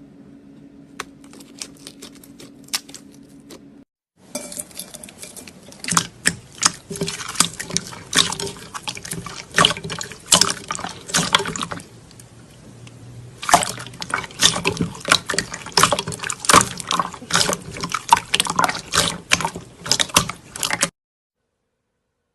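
Slime being worked by hand: faint wet clicks at first, then after a brief break a dense run of fast, sharp wet clicks and pops that cuts off suddenly near the end.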